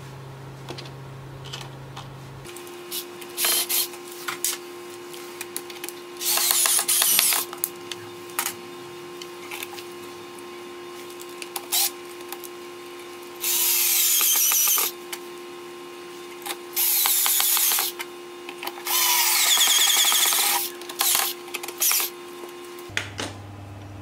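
Cordless screwdriver driving screws to fix a lock body to a wooden drawer, in about six short runs of one to two seconds each, with brief blips between.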